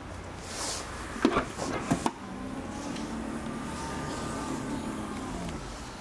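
Audi Q5 tailgate opening: a few sharp latch clicks and knocks, then the power tailgate's motor whirring steadily for about three seconds, its pitch falling as it comes to a stop.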